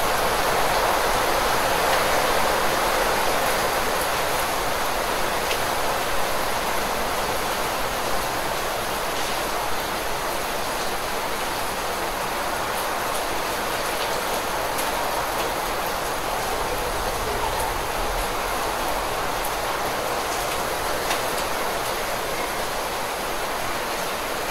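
Heavy rain falling steadily: a dense, even hiss with a few faint ticks of single drops.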